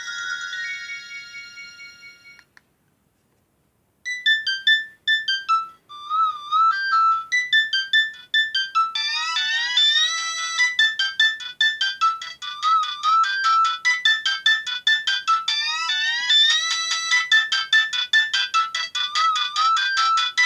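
Nokia 5030c-2 mobile phone playing its built-in ringtones. One tune dies away in the first two seconds; after a short gap a new quick, beeping synthesized melody starts about four seconds in and fills out into a busier repeating tune by about nine seconds in.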